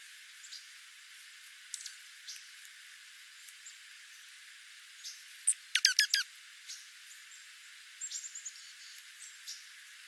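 Dark-eyed juncos calling while feeding on the ground: scattered short, high chips, a loud burst of four or five quick downward-sweeping notes about six seconds in, and a short rapid twitter a couple of seconds later. The audio has its low end filtered out, leaving only the high bird sounds over a faint hiss.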